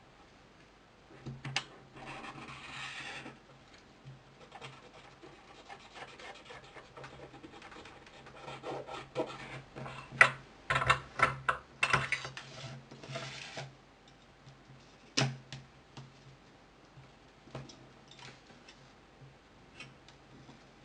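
Small hand tools and phone parts scraping, rubbing and clicking during a smartphone screen repair. There is a short scrape about two seconds in, a run of sharp clicks and taps in the middle, and one more sharp click later, over a faint steady hum.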